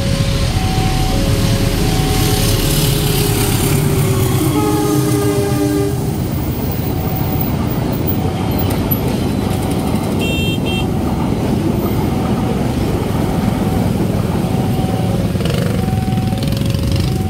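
A railway level-crossing warning alarm sounds a steady alternating high-low two-tone signal, about one cycle a second. A passing train adds its rumble, and its horn blows once for about a second and a half some four seconds in. A short high beep comes about ten seconds in.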